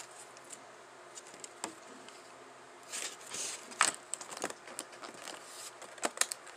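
Close-up chewing of a gummy candy: irregular wet mouth clicks and smacks, a few of them louder, over a faint steady hum.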